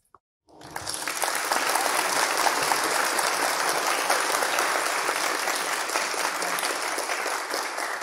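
Recorded sound effect of a large crowd, about a hundred people, clapping hard. The applause starts abruptly about half a second in, just after a faint click, and holds steady.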